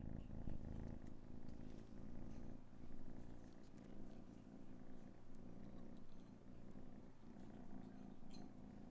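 A domestic cat purring: a low, steady rumble that rises and falls with its breathing.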